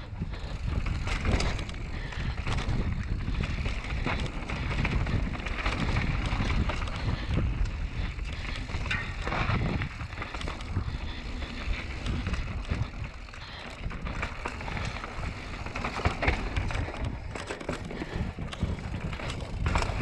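Commencal Meta mountain bike ridden fast down a dirt-and-rock singletrack: a continuous rumble of the tyres over the trail, with frequent clicks and knocks from the bike rattling over roots and rocks.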